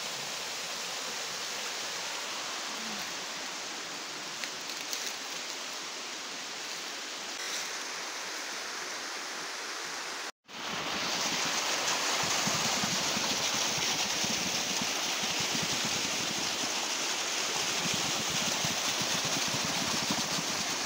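Steady rush of water from a small waterfall and stream. After a short break about halfway, a louder, steady gush of stream water pouring out of the open end of a gravity-fed irrigation pipe.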